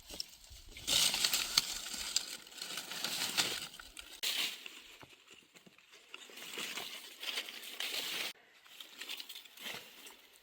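Dry crackling rustle, like crisp material being handled or crushed, coming in uneven bursts: a long loud stretch early, then another that cuts off suddenly about eight seconds in.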